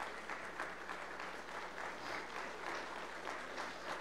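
Congregation clapping and applauding steadily as a crowd.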